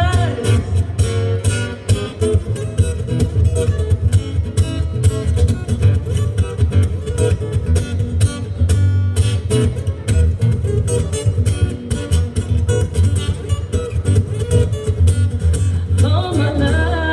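Acoustic guitar strummed in a fast, steady rhythm as a solo instrumental break; a woman's singing voice comes back in near the end.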